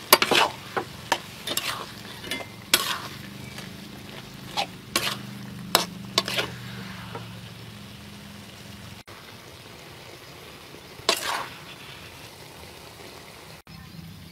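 Spatula scraping and knocking against a wok as chicken gizzards and vegetables are stir-fried, over a steady sizzle. The strokes come quickly for about the first seven seconds, then stop, with one more near the end.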